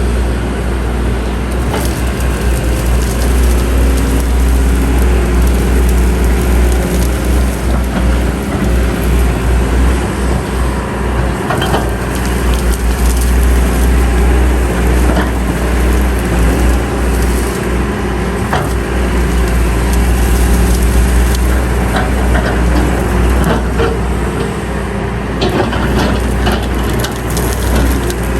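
Heavy diesel earthmoving machinery running steadily, with irregular clanks and crunching of soil and stones.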